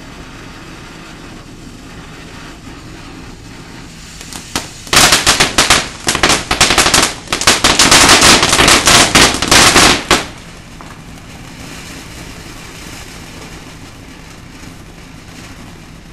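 Ground fountain firework hissing as it sprays sparks, then breaking into about five seconds of rapid, very loud crackling pops before settling back to a steady hiss.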